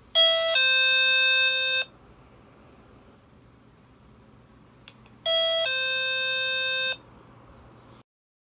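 Wireless caregiver pager receiver sounding a two-note ding-dong chime, a short high note then a longer lower note. It sounds twice, about five seconds apart, each time just after a click.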